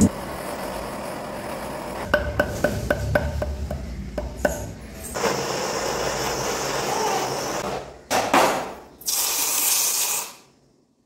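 Silver jewellery work: a steady hiss, then a run of light metallic clinks, then rushing, splashing liquid noise with two louder surges. The sound cuts off sharply shortly before the end.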